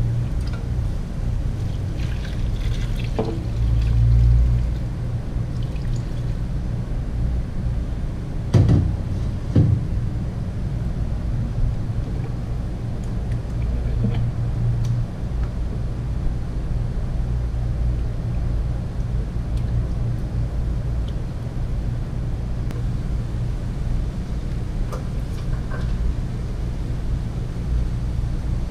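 Water poured from a steel pot into a stew pot, then a couple of sharp knocks from a spoon stirring the seasoning paste in, over a steady low hum.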